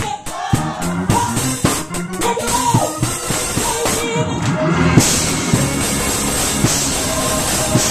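Live gospel music: a youth choir and a lead singer on a microphone singing over a drum kit.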